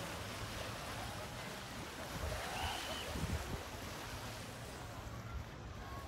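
Seaside ambience: a steady wash of calm sea water against shoreline rocks, with a low steady rumble underneath.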